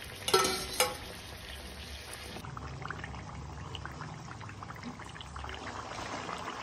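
Chicken pieces deep-frying in hot oil in a kadai: a steady bubbling sizzle full of fine crackles. There is a sharp click just under a second in.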